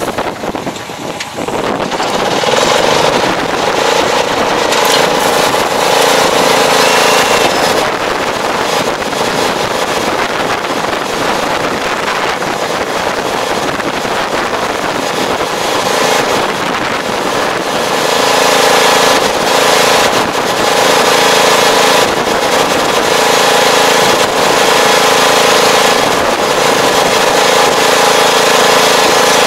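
Farm tractor's diesel engine running steadily. It picks up revs about two seconds in as the tractor pulls away towing a fertilizer applicator, and grows a little louder past the middle.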